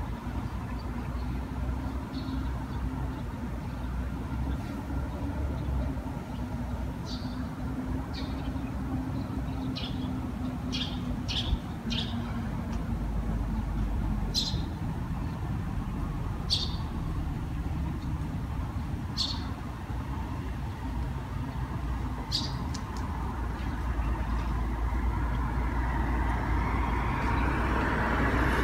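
Early-morning city street ambience: a steady low traffic rumble with small birds chirping now and then. Over the last few seconds a vehicle comes closer, growing steadily louder.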